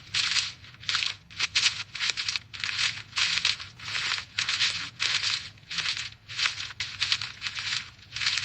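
Footsteps walking through dry fallen leaves, the leaves crunching and crackling underfoot at a steady pace of about two steps a second.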